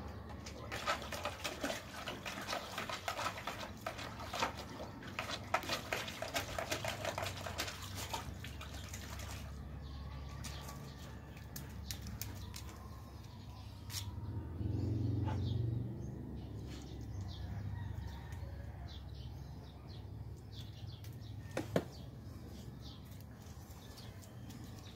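A dog splashing about in a plastic basin of water: a quick, irregular patter of splashes for roughly the first nine seconds, then it stops. Later it is quieter, with a short low rumble about fifteen seconds in and two sharp clicks.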